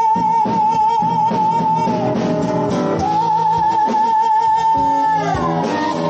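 Live band music with guitar: a high lead line holds a long wavering note, breaks off about two seconds in, then holds again until near the end over the band's chords.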